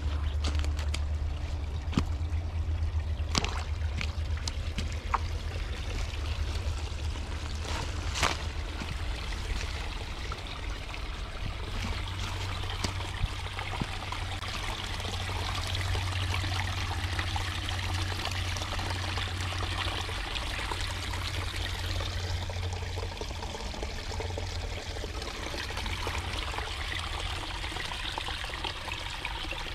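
Small creek water trickling, a thin stream spilling over a mossy log into a shallow pool, over a low steady rumble. A few sharp clicks come in the first several seconds.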